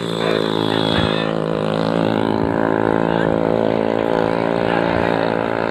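A motor vehicle engine running steadily at one unchanging pitch.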